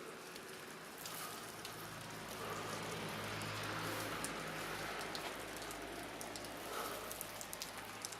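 Steady rain falling, with scattered sharp drops ticking close by. A low engine hum swells in from about a second in and fades again near the end.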